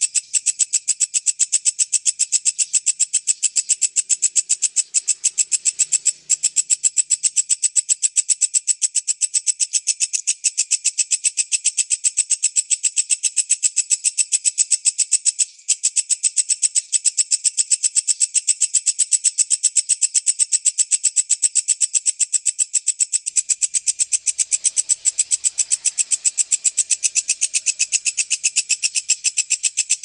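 Walang kecek insect calling: a fast, unbroken train of high, dry chirps at an even rate, the tight-paced song used as masteran for training songbirds.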